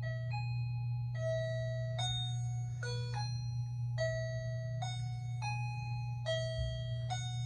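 Electronic chime melody from a KERUI wireless motion-sensor doorbell in music mode: one of its built-in songs, played as a slow tune of single bell-like notes, a little over one note a second, over a steady low hum.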